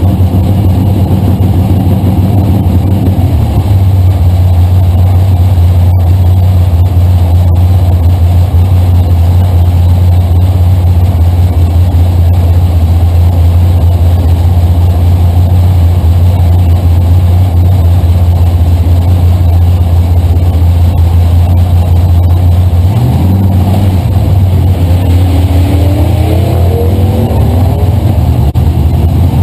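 Drag-racing Camaro's engine running loudly at idle, heard from inside the car's cabin. About 23 seconds in the engine speed rises, its pitch climbing over several seconds.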